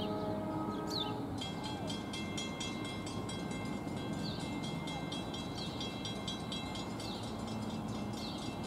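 A railroad grade-crossing bell starts ringing about a second and a half in: rapid, evenly spaced dings that carry on steadily. Before it comes a brief steady tone that sounds like a distant horn. A bird gives a short falling chirp again and again.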